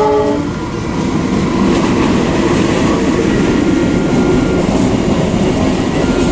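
Train hauled by a CC 206 diesel-electric locomotive passing close by: a brief chord-like horn note cuts off just after the start, then a loud, steady rumble of the train running past on the rails.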